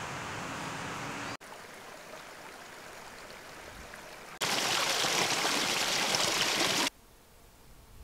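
Running water rushing in a steady hiss, cut abruptly into sections: moderate at first, quieter after about a second and a half, then a much louder rush from about four and a half seconds that stops sharply near seven seconds.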